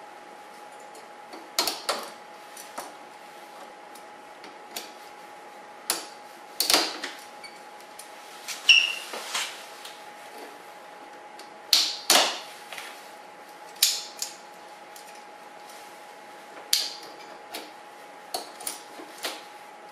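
Irregular clicks and clanks of vise grips (locking pliers) being worked onto the coolant hose clamp of a VW 1.8T engine, with a brief squeak about nine seconds in. A faint steady hum runs underneath.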